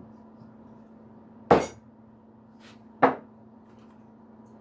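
Two sharp knocks of wooden blocks being tapped together over biscuits, about a second and a half apart, with a fainter click between them.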